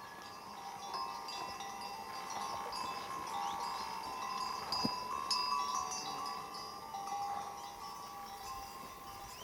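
Several bells on the collars of grazing horses ringing together, a continuous irregular jangle of overlapping tones.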